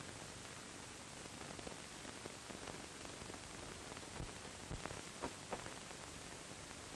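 Steady hiss of an old 1940 film soundtrack, with a few faint knocks or clicks in the second half.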